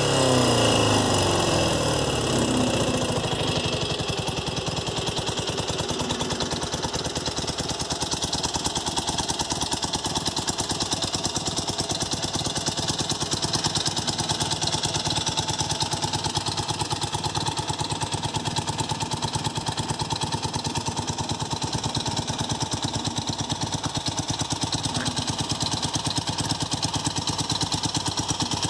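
BMW R45's air-cooled flat-twin boxer engine dropping back from a rev and settling to a steady idle over the first few seconds, then idling with an even pulse.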